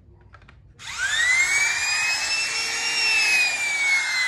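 Makita trimmer (small router) switched on about a second in, its motor running with a loud, high whine that rises in pitch for about two seconds and then slowly sinks.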